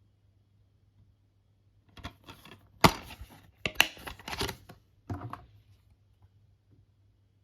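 Plastic DVD case being handled: rustling and a few sharp clicks, the two loudest about three and four seconds in, over a faint low hum.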